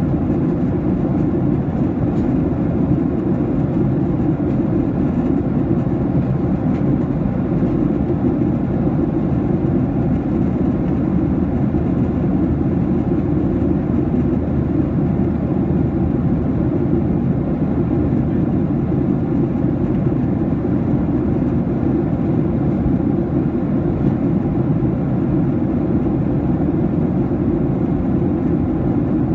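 Steady in-flight cabin noise of a Boeing 737-800: its CFM56-7B turbofans and the airflow over the fuselage, heard inside the cabin as an even, low-pitched noise that does not change.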